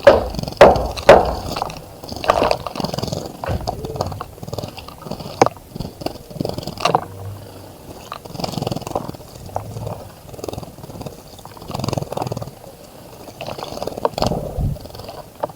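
A small bird bathing in shallow water: irregular bursts of splashing and fluttering wings, busiest in the first few seconds.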